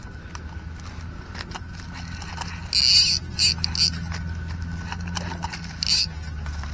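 A speared Nile tilapia flopping on dry leaves: crackling rustles and slaps in short bursts, loudest about three seconds in and again near the end.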